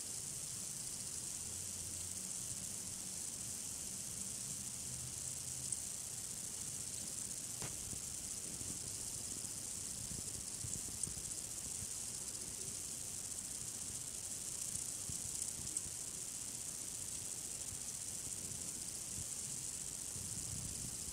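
Room tone: a steady high-pitched hiss over a faint low rumble, with a few faint ticks.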